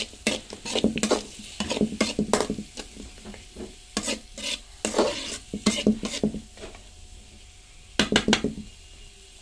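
Steel spatula scraping and clacking against a metal kadai while stirring onions, green chillies, ginger and curry leaves frying in oil, with a soft sizzle underneath. The strokes come in irregular runs, pause briefly, then a quick flurry near the end. The onions are being sautéed until they wilt.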